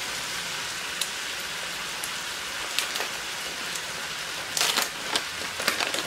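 Chicken pieces sizzling in a wok: a steady hiss with occasional sharp crackles, a cluster of them near the end.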